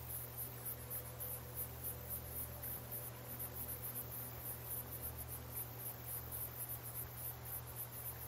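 Faint background of chirping crickets, a steady run of high-pitched pulses over a low, steady hum.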